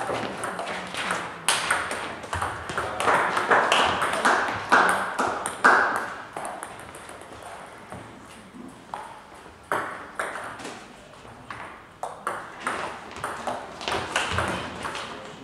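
Celluloid-type table tennis ball clicking in irregular sharp ticks: racket strokes and bounces on the table, with more bounces carrying from other tables in the hall. A louder stretch of noise comes between about three and six seconds in.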